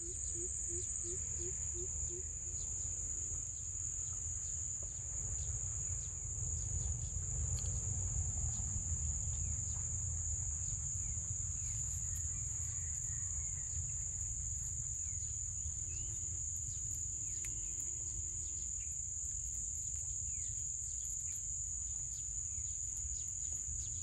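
Steady high-pitched drone of an insect chorus, over a continuous low rumble, with a few faint ticks.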